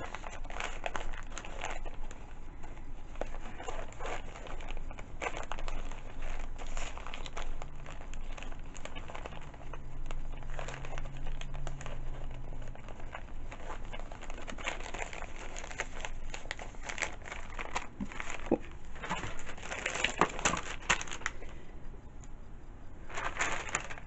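Wrapping paper crinkling and rustling as it is handled and folded, with irregular crackles throughout.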